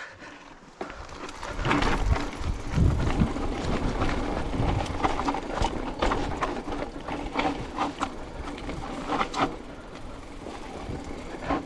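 Silverback Stride SX 29 hardtail mountain bike riding down a rough trail: tyres on dirt and rocks, with the chain and bike rattling and clicking throughout and heavier rumbling bumps in the first few seconds.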